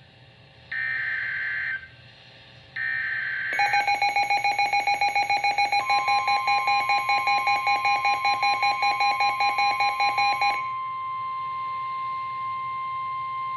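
Emergency Alert System alert: two bursts of screeching digital header data tones, then a rapidly pulsing attention tone at about six pulses a second. A steady beep joins after about two seconds and carries on alone once the pulsing stops, just before the voice warning.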